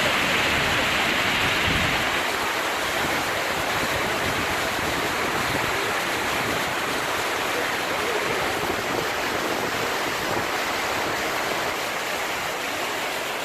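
Steady rushing roar of the Ouzoud waterfalls, a little louder in the first two seconds.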